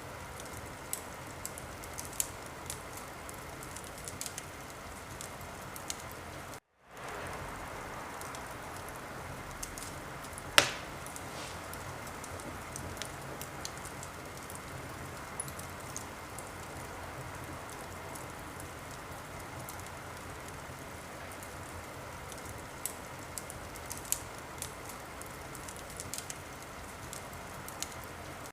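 Wood fire in a fireplace crackling: a steady hiss with scattered sharp pops, the loudest about ten and a half seconds in. The sound cuts out for a moment just before seven seconds, then resumes.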